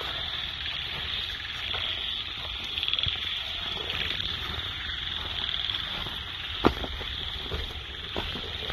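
A steady, high-pitched chorus of calling forest animals, with a few short sharp clicks, the loudest about two-thirds of the way through.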